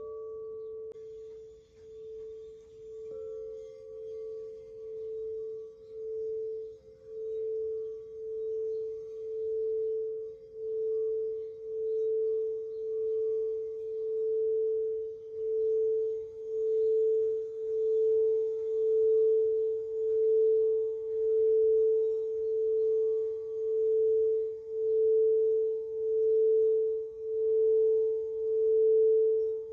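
Singing bowl struck once, then sung by circling a mallet around its rim: a single steady tone that throbs about once a second and swells steadily louder as the rubbing builds it up.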